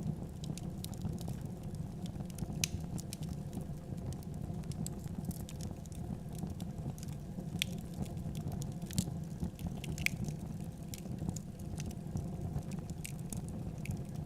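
Wood fire crackling: irregular sharp pops and snaps over a steady low rumble of burning flames.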